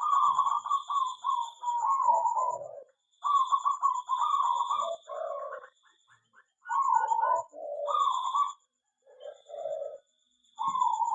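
Zebra doves (perkutut) cooing: bouts of rolling, stuttering coo phrases that step down in pitch, about five in a row with short gaps between them.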